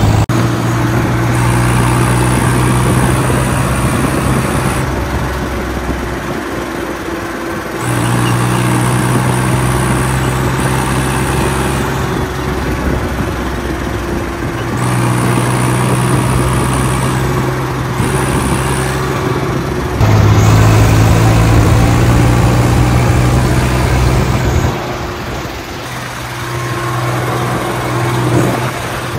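Swaraj tractor's diesel engine running steadily while the tractor is driven along a road, heard from the driver's seat. Its pitch and loudness jump suddenly every few seconds.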